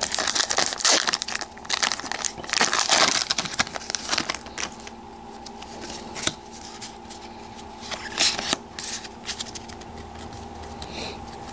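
Foil wrapper of a Pokémon trading-card booster pack crinkling and tearing as it is ripped open, loudest in the first four seconds or so. After that come softer, scattered rustles as the cards are handled.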